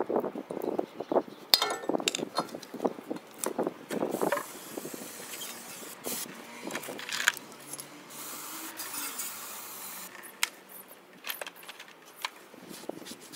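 Metal clinking and knocking for the first four seconds or so, then an aerosol can of brake cleaner hissing out in several bursts.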